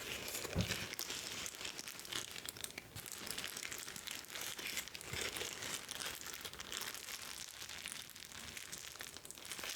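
Soft plastic wrapping on a new keyboard crinkling as it is handled and pulled off, a dense run of fine crackles.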